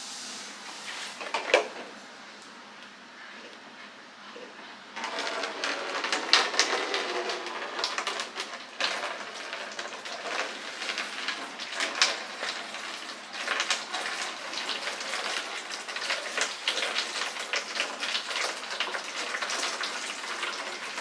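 A sharp click, then about five seconds in, water from a Tuttnauer autoclave starts draining through a clear plastic drain tube into a jug with an irregular splashing and trickling as the autoclave is emptied.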